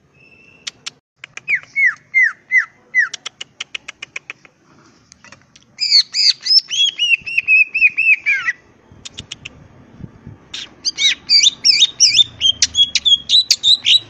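Male greater green leafbird (cucak ijo) singing: a row of sharp ticks mixed with four or five down-slurred whistles, then two long bursts of rapid, looping high notes, the first about six seconds in and the second near the end.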